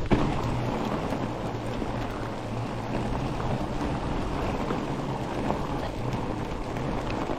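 Trek Farley 7 fat bike's wide tyres rolling steadily over crunchy, hard-packed snow, with wind on the microphone.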